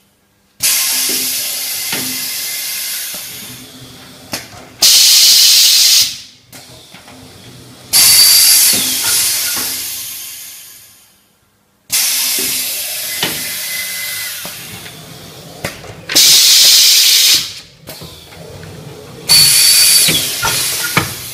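Compressed-air hiss from a pneumatic baking-cup forming machine in its work cycle: a long hiss that fades over a few seconds, then two short, very loud blasts. The cycle runs twice, with light clicks from the mechanism in between.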